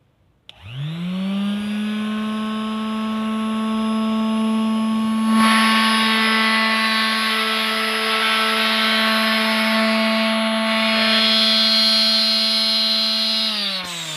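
Lotus LTEX250X quarter-sheet electric sander switched on and run without work: the motor spins up about half a second in to a steady hum with a whine over it, like a vacuum cleaner, with a rougher hiss joining about five seconds in. Near the end it is switched off and winds down with falling pitch.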